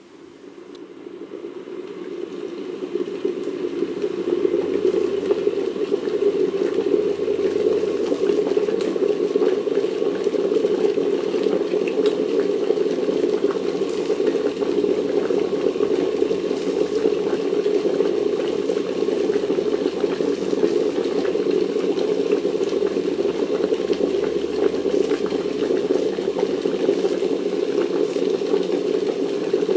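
Electric jug kettle heating up and coming to the boil: the rumble of the water builds over the first few seconds, then holds steady at a full boil.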